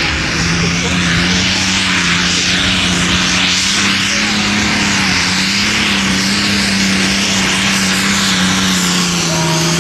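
Modified Ford diesel pulling tractor running flat out under full load as it drags the brake sled: a loud, steady engine drone holding one pitch, with a dense hiss of noise above it.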